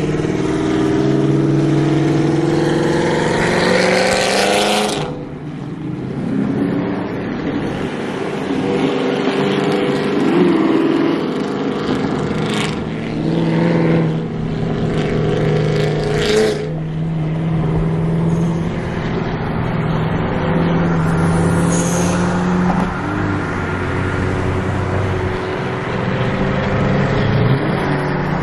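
Chevrolet Camaro engines and exhausts cruising at highway speed, a steady drone of several cars together. About two seconds in one revs up with rising pitch, then cuts off sharply around five seconds in. Two short, sharp bursts come a few seconds apart in the middle.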